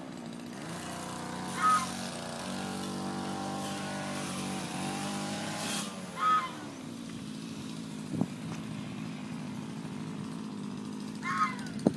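A petrol brush cutter's small engine running steadily, its pitch wavering for a few seconds as it is worked. A short high call sounds three times, about every five seconds.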